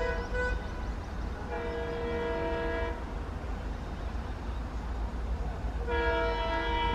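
Multi-tone air horn of an approaching WDP-4D diesel locomotive sounding in repeated blasts: one ending about half a second in, a second of about a second and a half soon after, and a third starting near the end, over a steady low rumble.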